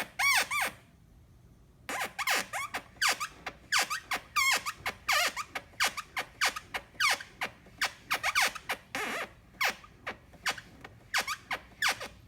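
SYM Tigra 150 scooter's front inner fairing panel squeaking, plastic rubbing as the handlebars are turned back and forth. There is a short squeak at the start, a pause of about a second, then a long run of short squeaks, several a second, each sliding up and down in pitch. The rubbing is an assembly flaw, silenced by greasing the panel.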